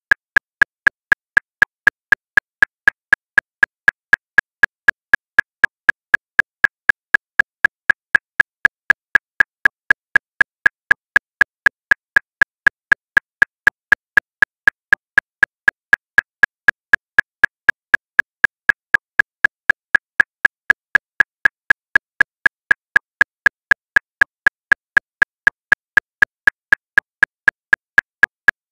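Metronome clicking steadily at 239 beats per minute, about four identical short, high clicks a second with no accented beat.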